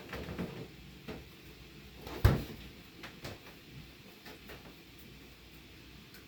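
A few scattered knocks and clatters, one much louder and sharper than the rest a little over two seconds in, then a few faint ticks.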